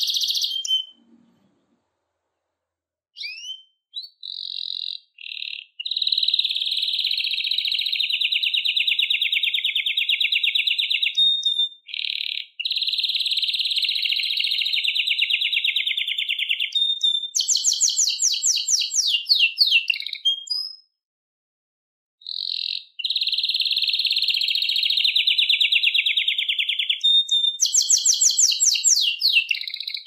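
Canary singing long, fast, rolling trills in phrases several seconds long, with short pauses between them. Some phrases change to a quicker, harsher rattle of repeated notes.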